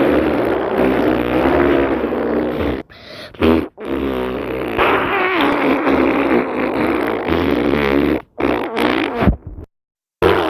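A farting sound effect playing in long, loud stretches with a wavering, bubbly pitch. It breaks off briefly a few times and falls silent for about half a second near the end.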